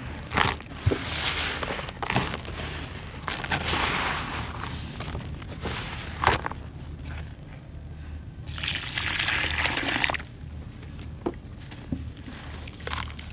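Hands digging and sweeping through dry, gritty dirt and sand in a plastic tub: a sandy rustling hiss that comes and goes, with scattered sharp clicks of grit and small lumps. Near the end a wet sand-cement lump is scooped up from muddy water.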